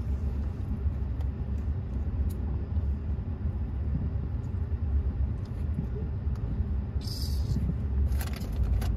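Cabin noise inside a moving Ford F-150 pickup: a steady low rumble of engine and road. A brief hiss comes about seven seconds in.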